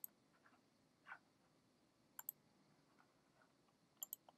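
A few faint computer mouse clicks over near silence: a single click at the start, a softer one about a second in, then two quick pairs about two and four seconds in.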